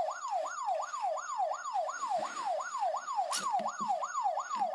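Electronic siren in a fast yelp: the pitch sweeps down and snaps back up about four or five times a second, without a break. A sharp click falls a little past three seconds in, with a few soft knocks around it.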